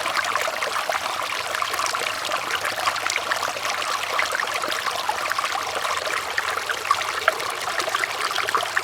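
River water flowing steadily over stones, a continuous babbling and trickling with many small splashes.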